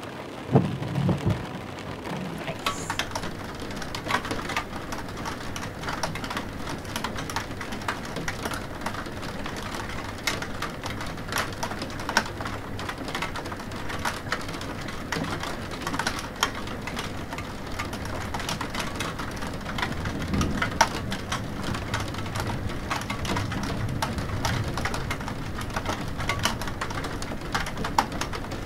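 Rain falling steadily, with many individual drops ticking sharply on a hard surface. Low rolls of thunder come in about a second in and again about two-thirds of the way through.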